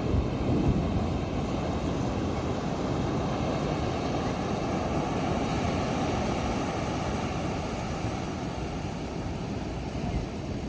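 Large Atlantic ocean waves breaking: a steady roar of surf, briefly louder in the first second.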